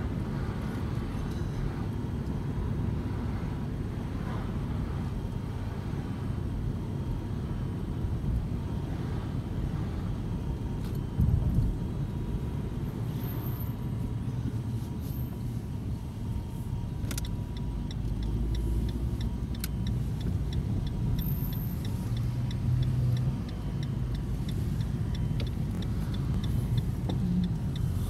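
Car cabin noise while driving: a steady low road and engine rumble, with a single thump a little before halfway. About two-thirds of the way in, a quick regular ticking starts, about two or three ticks a second, the turn-signal indicator clicking as the car approaches a junction to turn.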